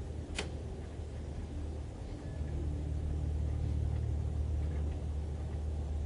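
A low steady rumble that grows louder about two and a half seconds in, with one sharp click near the start.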